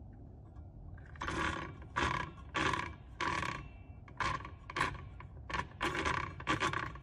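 Makita DHS680 cordless circular saw's blade pushed round by hand in short strokes, about two a second from a second in, each turn bringing a brief whir from the geared drive and motor. It is a check after reassembly that the blade turns freely, and it turns without grinding.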